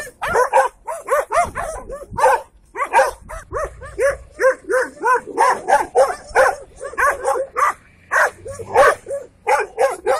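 Several tan mixed-breed dogs barking, short high barks in quick runs of about three or four a second, with a couple of brief breaks.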